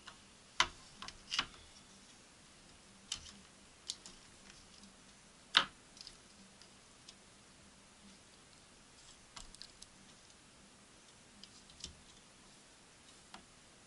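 Scattered plastic clicks and taps from handling a cordless phone handset, its battery cover and a rebuilt battery pack of small cells, with a few sharper knocks in the first few seconds.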